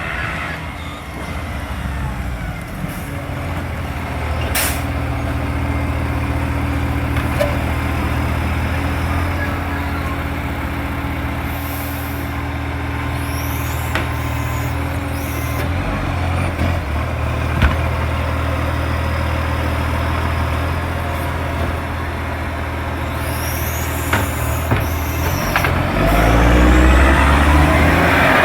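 Diesel garbage truck engine running steadily, its exhaust leaking, getting louder near the end.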